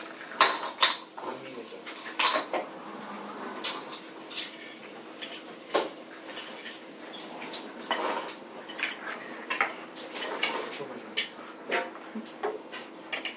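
Forks and chopsticks clinking against plates and bowls while people eat, in sharp irregular clinks about every second, over a faint steady hum.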